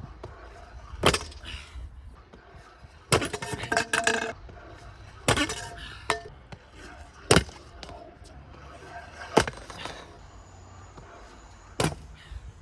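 Freestyle scooter on a concrete skatepark floor: the wheels roll with a low rumble, broken by a series of sharp clacks as the scooter's wheels and deck hit the concrete on landings, about seven over the stretch, with a quick cluster a few seconds in.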